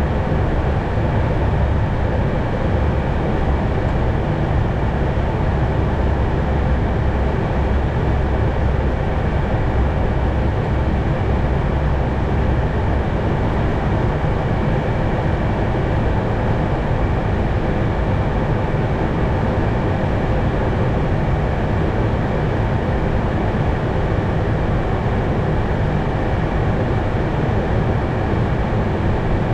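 Steady cockpit noise of an Airbus A220 in flight on approach: a constant rush of airflow and engine hum, heaviest in the low end, with a few faint steady tones above it. The deepest rumble eases a little about halfway through.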